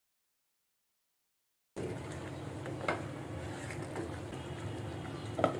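Complete silence for nearly two seconds, then a wooden spatula stirring thick, soupy khichuri in a pan, with a few soft clicks and one sharper knock against the pan near the end, over a steady low hum.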